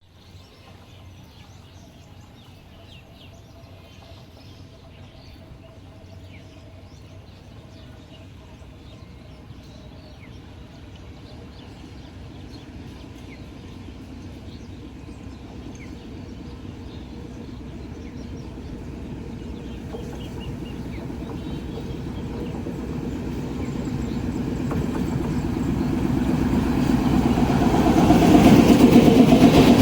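Maitree Express passenger train approaching on its rails, its rumble growing steadily louder and loudest in the last couple of seconds as it arrives.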